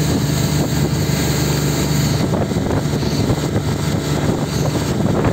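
Tow boat's engine running steadily with wind buffeting the microphone; the engine's low tone fades about two seconds in, leaving mostly wind and water noise.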